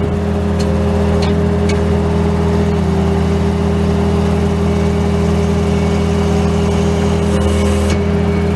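Bobcat T630 track loader's diesel engine running steadily, with a steady higher whine over the engine note, the loader driving its stump grinder attachment. A few faint ticks in the first two seconds.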